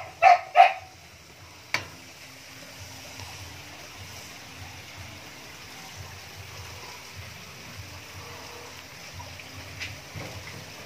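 Husky puppy giving three short, high yaps in quick succession within the first second, followed by a single sharp click. After that there is only a steady hiss and faint low rustling.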